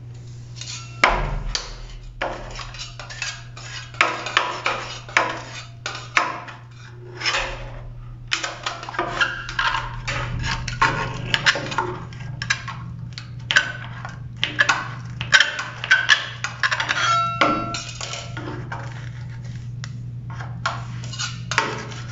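Metal scraper blade scraping and clicking in short, irregular strokes along a shower's corner joint and metal door frame, prying out old silicone sealant. A steady low hum runs underneath.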